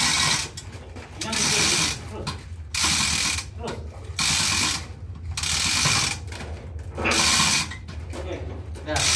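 Manual chain hoists working a slung marine-engine crankshaft: a ratcheting chain rattle in repeated strokes, roughly every second and a half, each about half a second long, over a steady low hum.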